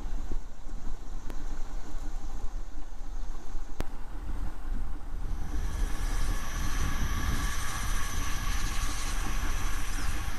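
Boat motor running steadily under way, a low rumble with water and wind noise. About halfway through, a steady higher-pitched whine joins in.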